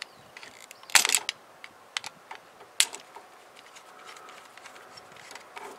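Scattered small clicks and scrapes of a screwdriver loosening the wire's terminal screw on a plastic-cased circuit breaker held in the hand, with the strongest cluster of clicks about a second in.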